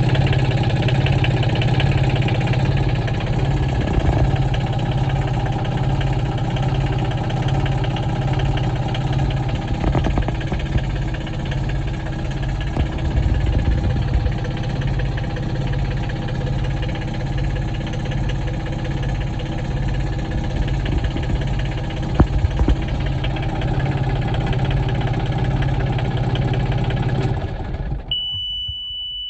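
Mitsubishi-based Vetus M.29 marine diesel engine idling steadily with an even diesel throb. It cuts out near the end, and a steady high-pitched beep follows.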